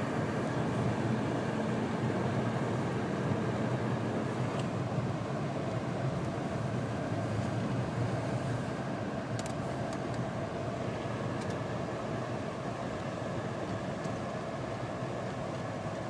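Steady in-cabin road noise of a car driving on a snow-covered road, engine and tyres making an even rumble that eases a little near the end.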